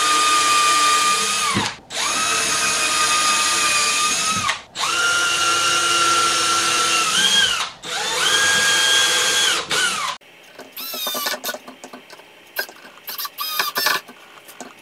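Cordless drill boring into a hardwood cutting board in four steady runs of two to three seconds each. About ten seconds in it gives way to a quick series of short trigger bursts and clicks, each rising in pitch, as a cordless driver is used on the board.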